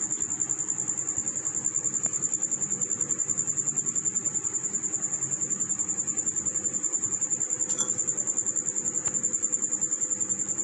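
An insect's steady, high-pitched trill, pulsing rapidly without a break, over a low background hum.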